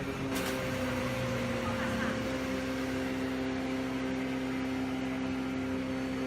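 Ultrafine powder mill machine running, a steady mechanical hum and rush. A brief burst of noise comes near the start, and the hum's pitch shifts slightly before holding steady about two seconds in.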